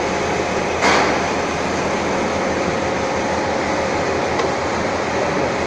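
Steady running noise of workshop machinery, with a single sharp metallic clank about a second in.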